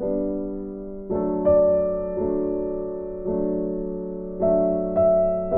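Background music: slow keyboard chords, each one struck and left to fade before the next.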